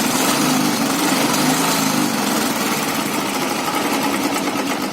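Royal Enfield Bullet single-cylinder engine running hot near idle, with the odd air-like noise that appears only once the engine is warm; one mechanic blamed the crank, another the petrol tank's air vents. The sound eases off near the end.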